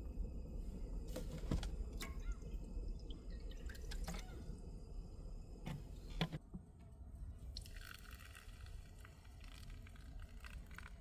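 Small liquid sounds with a few sharp clicks over a low steady rumble, and a brief hiss about eight seconds in.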